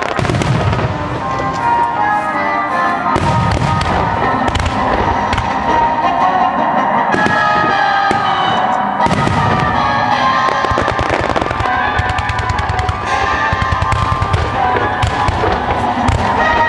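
Aerial fireworks shells bursting in quick succession, with many sharp bangs and low rumbles, under background music with a melody.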